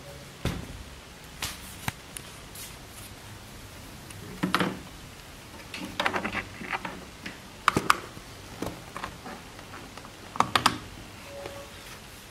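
Handling noise: a series of light clicks and knocks, some in quick runs of taps, as things on a desk are moved and touched.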